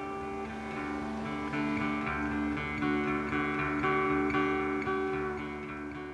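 Background music: a solo guitar picking out a melody of plucked notes.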